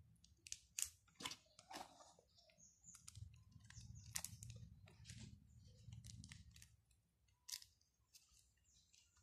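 Faint scattered crinkling and crisp clicks of a cardboard perfume box and a paper card being handled, with a few louder clicks among them.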